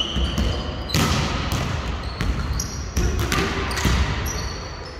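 Basketball play on an indoor court: a ball bouncing on the floor several times, loudest about one and three seconds in, with short high squeaks of shoes on the court.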